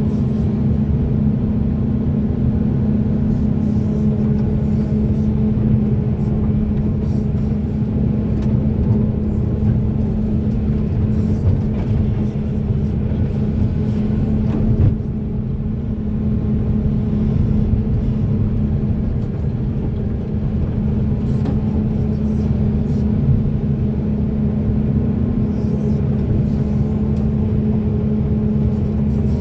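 Caterpillar hydraulic excavator's diesel engine running steadily under working load, a continuous low rumble with a steady hum, dipping briefly about halfway through.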